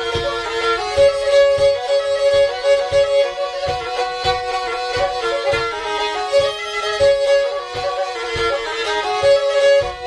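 Turkish Black Sea folk music in an instrumental break: a kemençe plays a busy, ornamented melody over a steady drum beat, with no singing.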